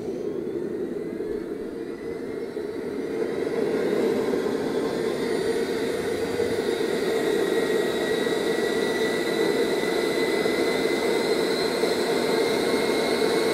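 Home-built KJ66 model gas turbine starting up: a whine that rises slowly in pitch over a steady rush, growing louder for the first few seconds and then holding. The starter motor is spinning the turbine up towards about 22,000 RPM while it lights.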